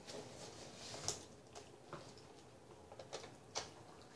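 Faint, scattered clicks and crinkles of small plastic food packaging being handled: a dipping-sauce cup is unwrapped and its lid peeled off.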